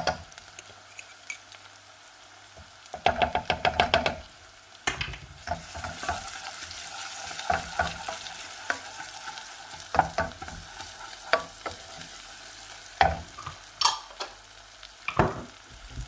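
Onion, ginger and garlic frying in very hot oil, sizzling steadily while a spatula stirs them round the pan. There is a quick run of scraping strokes about three seconds in, then occasional single scrapes and knocks against the pan.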